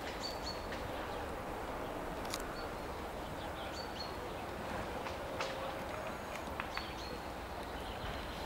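Steady outdoor background noise with a few faint, irregular knocks and several short, high bird chirps.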